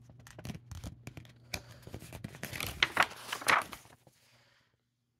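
Picture-book pages being handled and turned: paper rustling and crinkling with sharp flaps and clicks, loudest about three seconds in and stopping about a second later.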